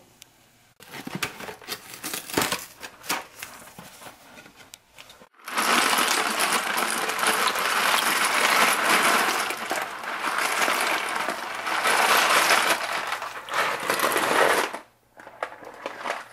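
Dry penne pasta pouring out of its cardboard box into a pot of boiling water, a long continuous rattling clatter of hard pasta pieces that starts about five seconds in and stops suddenly near the end. Before it come scattered clicks and short rattles.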